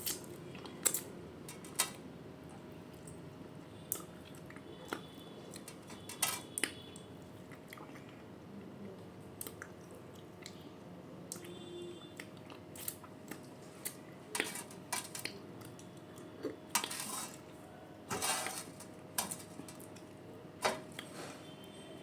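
A person eating a meal: chewing, with scattered sharp clicks and clinks of dishes, over a faint steady hum.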